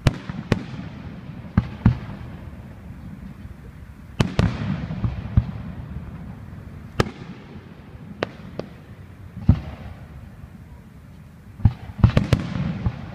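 Fireworks display: aerial shells bursting one after another with sharp bangs, in quick clusters with a crackling trail about four seconds in and again near the end.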